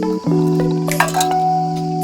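Background music: sustained chords that change about every second, with light bell-like percussive clicks over them.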